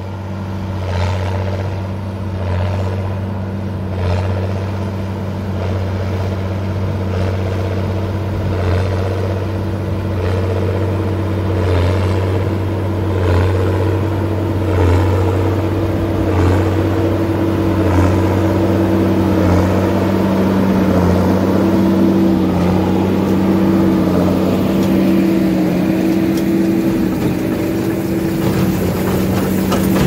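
Massey Ferguson 7495 tractor running under load while pulling a New Holland BB940 large square baler, with a regular beat about every second and a half, the baler's plunger compressing hay. It grows louder as the rig comes closer.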